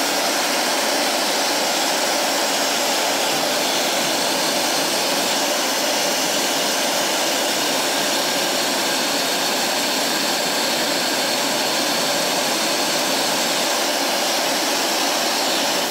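Roidmi Miro high-speed hair dryer running at its highest speed setting: a steady rush of blown air with a faint high whine from the motor over it.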